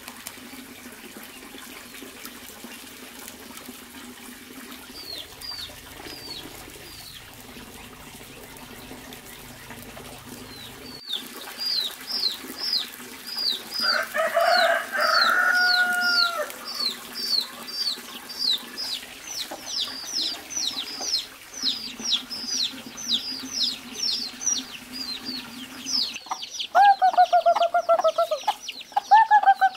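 Chickens: chicks peeping over and over, short high falling peeps about two a second, starting about ten seconds in. A hen gives a drawn-out call around the middle, and loud rapid hen clucking comes near the end.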